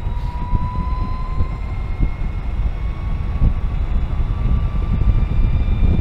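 Energica Eva Ribelle RS electric motorcycle riding along: the electric drive gives a thin high whine that rises slightly in pitch, under heavy wind rumble on the helmet microphone.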